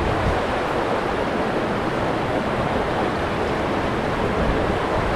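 Rushing water of a mountain stream, a steady, even rush with no breaks.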